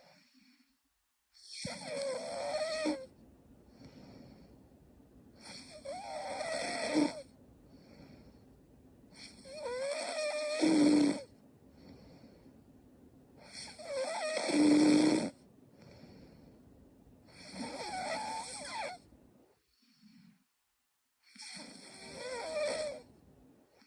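A young woman snoring in her sleep: six loud snores in a regular rhythm, about one every four seconds and each lasting one and a half to two seconds, with short, much fainter breath sounds between them.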